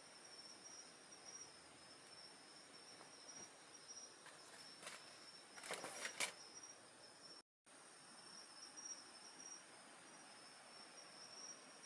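Night insects trilling steadily in a high, faintly pulsing chorus, with a few sharp crackles of a wood campfire about five to six seconds in. The sound cuts out completely for a split second past the middle.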